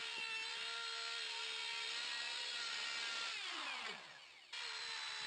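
Electric router with a 50 mm planer bit running steadily as it planes a red gum and epoxy slab in a router sled, a steady whine with a rushing cut. About three and a half seconds in, the whine slides down in pitch and fades, then the running sound cuts back in suddenly about a second later.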